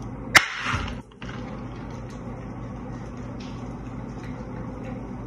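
A single sharp pop about half a second in: a wide boba straw stabbed through the sealed plastic film lid of a bubble tea cup. After it, a steady low room hum.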